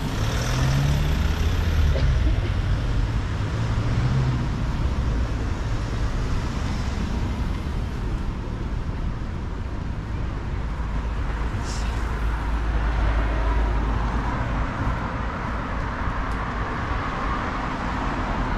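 Road traffic passing on a city street: cars and a van driving by, with steady engine and tyre noise. A vehicle engine drones most strongly in the first few seconds.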